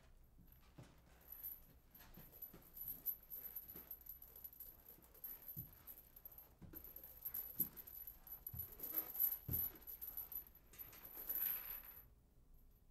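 Faint, irregular taps and knocks of someone creeping on a wooden staircase, with light metallic jingling and rustling as they move. The sounds stop suddenly near the end.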